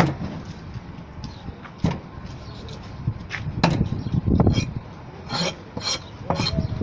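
Heavy fish-cutting knife knocking and scraping on a round wooden chopping block while saram (seer fish) is chopped into pieces, in irregular strikes, some a second or more apart, some in quick succession.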